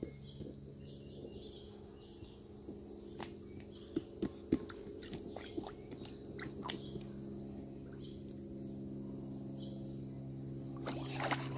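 Birds chirping with short, high calls every so often, while small splashes and taps come from a plastic ball being handled in shallow creek water, mostly in the middle of the stretch. A steady low hum sits underneath.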